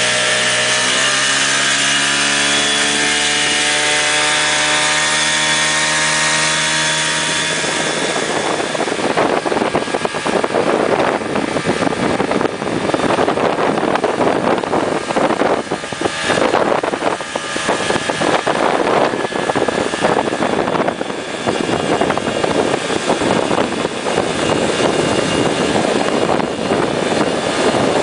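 Speedboat engine accelerating, its pitch rising steadily over the first seven seconds or so, then running at speed under a loud, rough rush of wind and water noise.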